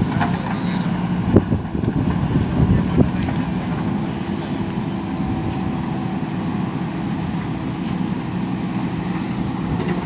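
JCB backhoe loader's diesel engine running at a steady speed, with a constant low hum. A few short knocks sound in the first three seconds.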